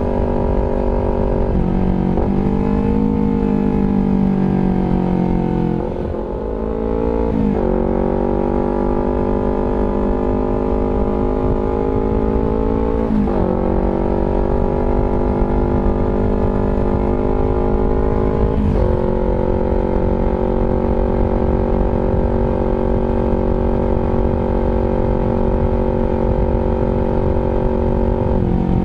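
Honda CBR250RR engine running through an R9 GP Series aftermarket exhaust, held at a steady speed with several brief throttle changes: a dip about six seconds in, quick pitch jumps at around seven, thirteen and eighteen seconds, then holding steady.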